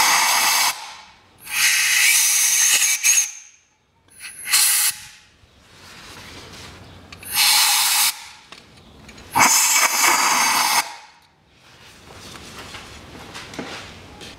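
Compressed-air blow gun fired in five short blasts of hiss, the second and last lasting over a second, blowing dirt out of a diesel injector well on a 2.2-litre turbodiesel engine.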